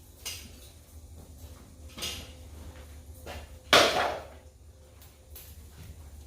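Metal clanks and scrapes from foundry tools, three of them, the loudest about three and a half seconds in, over a steady low rumble.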